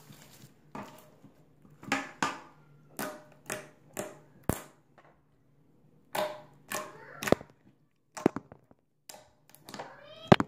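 Gray glossy slime squeezed and kneaded by hand, giving a string of sharp wet pops and short squelches with quiet gaps between.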